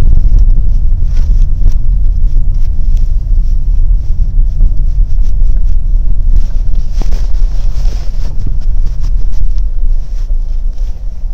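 Wind buffeting the camera's microphone: a loud, uneven low rumble with a few faint clicks, easing off somewhat near the end.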